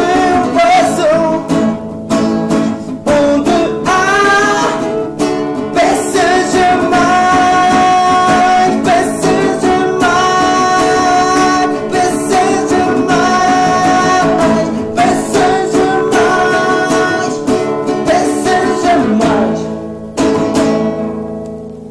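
A song played on acoustic guitars with a voice singing, fading out over the last few seconds.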